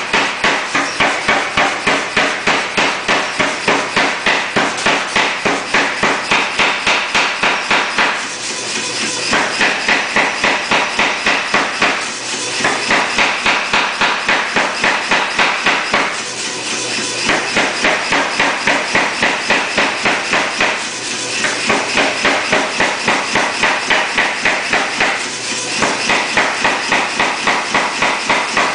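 Say-Mak SPH 50 self-contained power hammer pounding a red-hot bar of 9260 steel between flat dies in rapid, evenly spaced blows, drawing it out into a tong rein. The blows break off briefly about every four seconds as the stock is fed in for the next bite.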